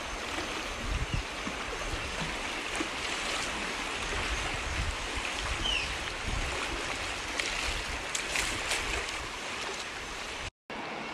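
Fast river current rushing past the bow of a wooden dugout canoe as it runs downstream: a steady wash of water noise, with an irregular low rumble of wind on the microphone.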